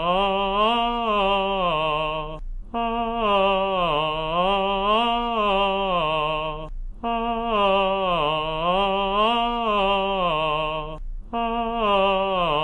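A man's voice singing an unaccompanied legato vocal exercise on a held tone, in connected phrases of about four seconds. Each phrase glides down and back up in pitch, with short pauses between phrases.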